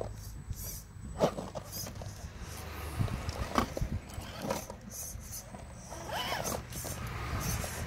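Electric drive of an Axial SCX10 RC rock crawler whining in short bursts of throttle, with tyres and chassis scraping and knocking on lava rock as it climbs.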